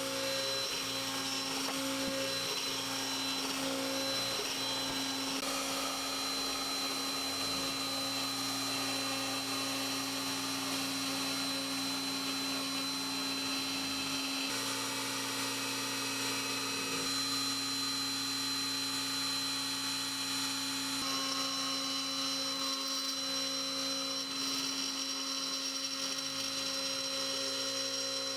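X-Carve CNC router spindle running steadily with a high whine as its small end mill cuts a pocket into Tasmanian oak. The mix of tones shifts abruptly a few times.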